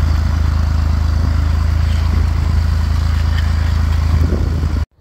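Small farm tractor's engine running steadily while pulling a two-bottom moldboard plow through sod, a strong low hum with an even pulse. It cuts off suddenly near the end.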